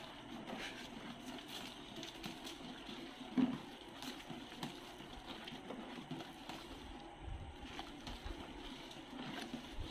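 Thick homemade dishwashing liquid sloshing softly as it is stirred by hand with a plastic spaghetti server in a plastic basin, with small clicks and scrapes of the utensil against the tub and one brief louder bump about three and a half seconds in.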